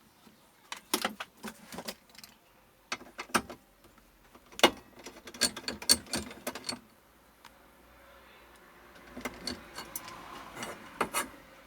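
Irregular small clicks and light taps from multimeter probes and hands working on a TV circuit board, thickest in the middle, with a soft rustle near the end.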